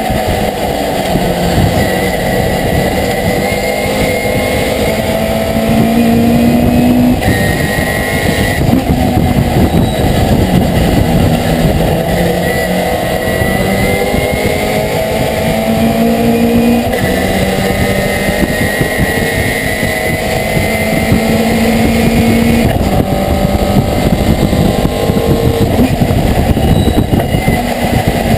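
Racing pickup truck's V8 engine at full race pace, heard from inside the cab: its pitch climbs in long pulls and drops sharply a few times between them.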